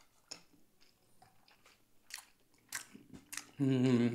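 Close-up eating sounds: scattered wet lip smacks and chewing clicks from someone eating beef in soup, then a brief hummed vocal sound near the end.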